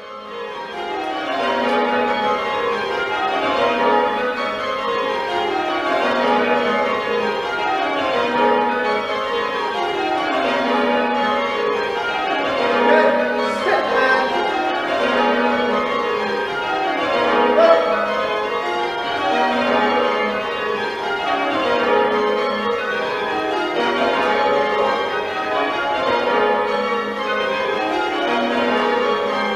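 Church tower bells rung full-circle in change ringing: rows of bells strike in quick succession, each row running down from the highest bell to the lowest, one row after another.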